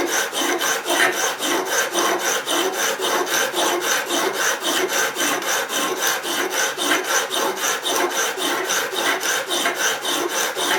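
Abrasive bar on a guided sharpener's slider stroked steadily back and forth across the steel edge of a vegetable peeler's blade, a rhythmic scraping rub. It is grinding down a worn edge, the ends sharpening first while the worn middle is not yet reached.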